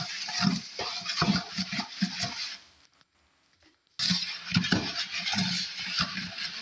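Flat stick scraping and stirring a damp, crumbly salt-and-base paste around a plastic bucket in rhythmic strokes. The strokes stop for about a second midway, then start again abruptly.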